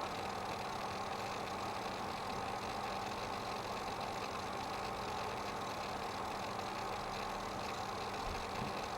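Seagate Barracuda 2TB 5400 rpm hard drive running with a steady hum. The owner calls it a strange noise that started lately, though software tests show the drive performing well.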